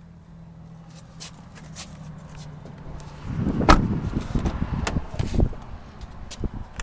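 A faint steady low hum, then from about three seconds in a run of knocks, clicks and rustling, the sharpest knock just under a second later, thinning to scattered clicks near the end.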